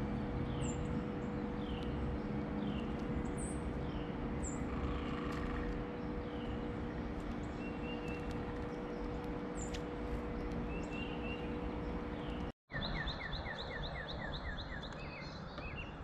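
Wild songbirds calling: a short chirp that falls slightly in pitch, repeated about twice a second, with fainter high calls, over a steady low hum and outdoor background noise. After a sudden break about twelve seconds in, another bird gives a quick run of short notes.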